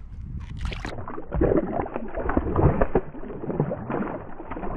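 Water splashing and sloshing, with many quick slaps, as a bullhead thrashes at the surface, starting about a second in.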